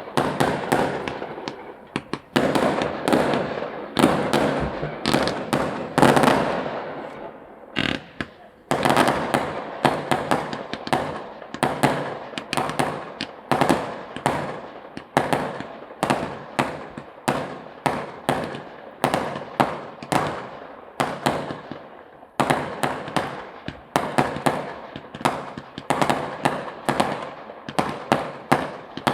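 Fireworks going off in a continuous barrage: sharp bangs and crackles, several a second, each trailing off, with a brief lull about eight seconds in.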